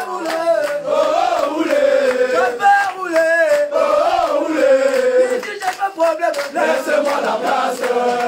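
A group of footballers chanting and singing a victory song together, many male voices at once.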